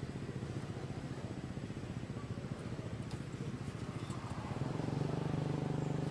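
A motor engine running steadily, getting louder about four and a half seconds in.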